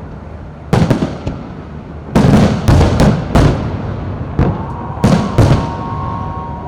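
Aerial fireworks exploding: about ten loud bangs at irregular intervals, several in quick succession in the middle, each trailing off with an echo. A steady high tone comes in about four and a half seconds in and holds.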